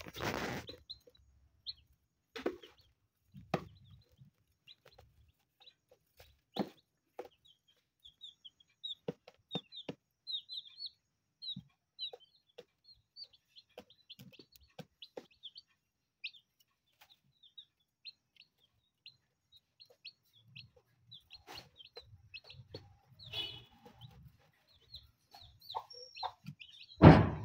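Newly hatched chicks peeping in short, high cheeps, over scattered sharp taps of beaks pecking rice grains off a plastic lid. In the last few seconds the mother hen clucks low and soft, and a louder knock comes right at the end.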